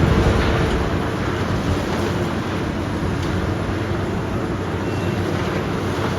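Heavy demolition machinery running: a loud, steady mechanical din with a few faint knocks mixed in.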